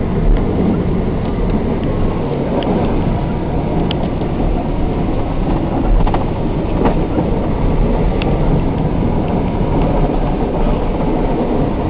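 Steady rumble and rattling inside a snowplow truck's cab as the truck plows, with scattered sharp clicks and clunks.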